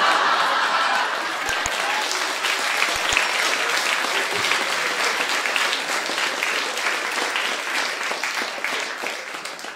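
Audience applauding in a comedy club after a punchline, a dense patter of claps that starts at once and fades near the end.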